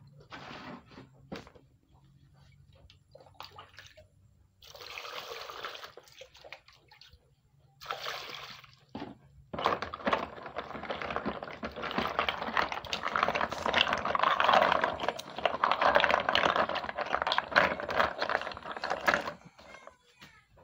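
Giant African land snails (Achatina marginata) being washed by hand in a plastic bowl. Their shells click faintly at first, then water pours into the bowl in two goes, about five and eight seconds in. After that comes a long stretch of water sloshing and splashing, with the shells clacking against each other as they are scrubbed, dying away near the end.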